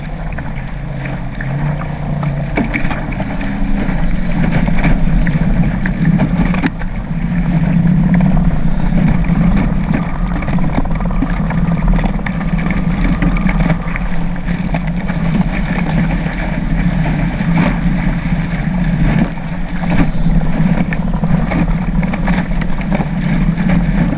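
Wind and water rushing steadily past a small sailboat under sail in strong wind.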